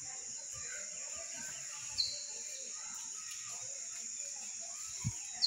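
Steady high-pitched chorus of insects in the countryside. A short bird chirp, falling in pitch, comes about two seconds in and again at the end, and there is a soft low thump just before the end.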